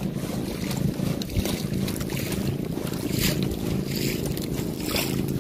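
Outrigger boat's engine running steadily at low speed, with wind on the microphone and a few brief gusts or splashes.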